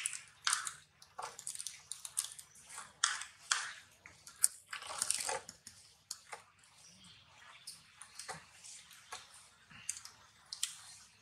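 Irregular soft crunching and rustling noises, a few short bursts each second, with one sharper click about halfway through.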